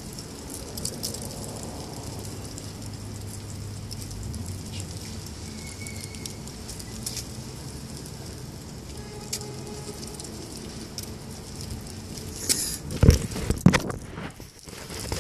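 Outdoor background with a faint low engine hum and scattered light footsteps on pavement. About two seconds before the end come loud knocks and rubbing: handling noise as the phone is picked up off the ground.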